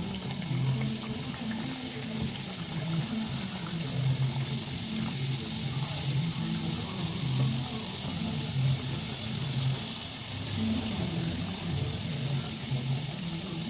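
Gujiya deep-frying in hot oil in a steel wok, giving a steady bubbling sizzle over a medium flame while the pastries are still pale, early in the frying.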